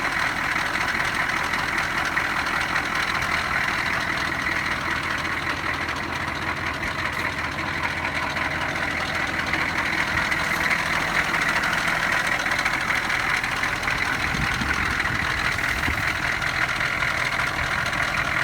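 Food truck's engine idling steadily and loudly while it warms up on its first run since midwinter.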